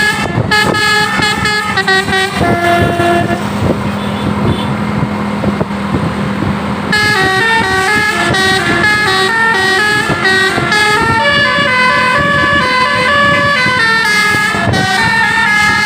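Indonesian tour bus telolet horn, a multi-tone air horn, playing a tune of quick stepping notes over a steady low hum. The tune thins out about two seconds in, leaving mostly the hum and a noisy rush, and picks up again, fuller, about seven seconds in.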